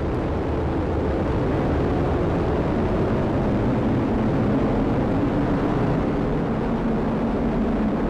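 Atlas V rocket's RD-180 main engine and solid rocket boosters during the first seconds of ascent: a steady, deep rumble of rocket exhaust.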